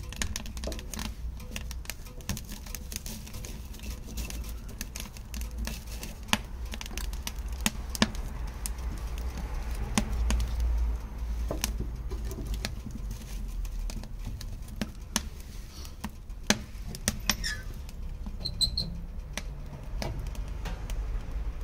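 Oak and chestnut wood fire crackling and popping in a steel-drum firebox, with irregular sharp cracks throughout over a steady low rumble. Logs knock as they are pushed into the firebox at the start, and the firebox's metal door is handled near the end.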